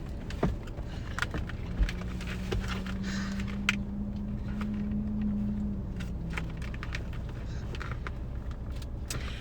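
Steady low rumble of a car idling, heard from inside the cabin, with a held low tone for a few seconds in the middle. Scattered light clicks and rustles sound over it.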